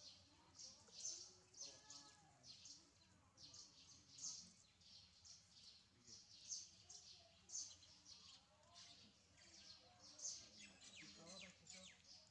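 Faint, rapid high-pitched chirping of birds, several chirps a second, with faint distant voices underneath.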